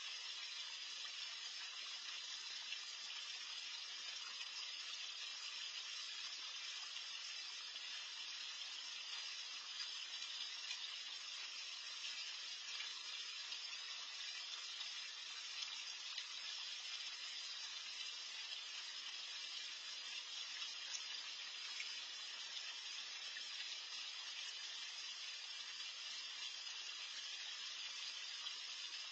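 Garden pond water feature bubbling and splashing, a steady even hiss.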